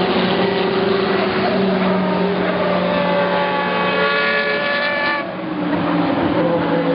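Several endurance race car engines running at racing speed at once. One engine note rises in pitch and cuts off suddenly about five seconds in, and other notes slide up and down in pitch as cars pass.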